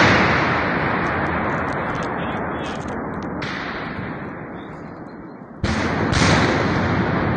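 Nearby explosions in combat. The rumble of a blast dies away slowly over about five seconds, then a second sudden loud blast comes about five and a half seconds in.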